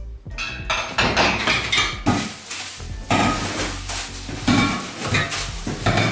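White metal coat rack parts, tubes and hook bars, clinking and clattering against each other as they are lifted out of a cardboard box and laid down on a wood-effect floor, in a quick run of knocks.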